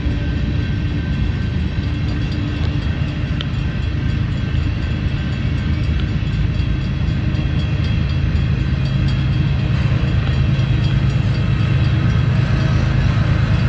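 Union Pacific freight train's cars rolling slowly past, a steady rumble that grows louder in its low end from about halfway through.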